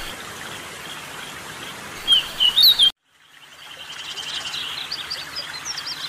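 Blue flycatcher (teledekan, the 'sulingan') song: a short phrase of clear, flute-like whistled notes gliding up and down, about two seconds in, over a background hiss. After a sudden cut near the middle, a different bird's rapid chattering song fades in.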